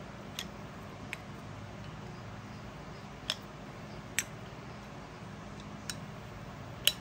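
About six light, sharp clicks or taps at uneven intervals, over a faint steady hum.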